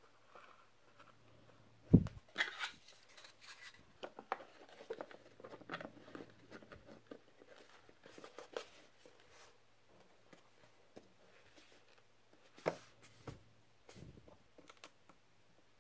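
Hands handling a small 3D-printed plastic boat hull: a sharp knock, then light rubbing and clicking as wires are pushed into place, and a couple of light plastic knocks near the end.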